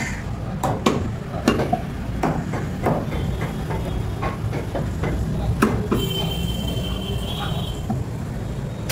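Butcher's cleaver chopping goat meat on a wooden log chopping block: sharp, irregular chops about one a second over a steady low rumble.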